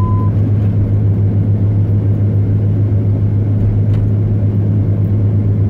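Pickup truck driving, heard from inside the cab: a steady low engine and road drone with no change in pitch.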